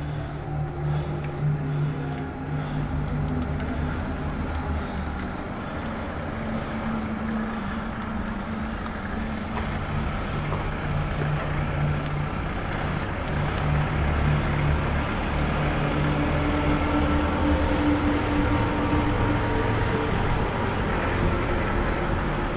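Motor vehicle engines running in slow street traffic: a steady engine drone with a few shifting pitches over a low rumble. It grows slowly louder as the bicycle closes in behind a van.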